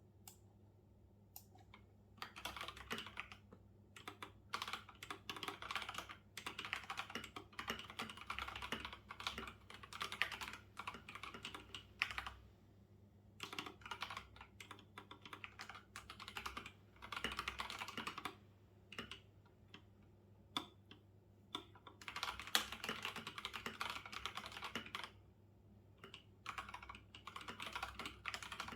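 Typing on a computer keyboard in quick runs of keystrokes broken by short pauses, over a faint steady low hum.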